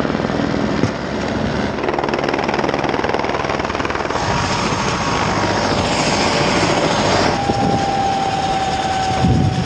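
Helicopter running on the ground, its rotor and engine making a loud, steady noise, with a steady high-pitched whine coming in about four seconds in.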